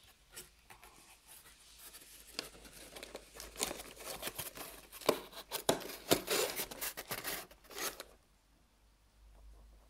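A cardboard box being handled and closed: irregular scraping and rustling of cardboard, louder in the middle, stopping about two seconds before the end.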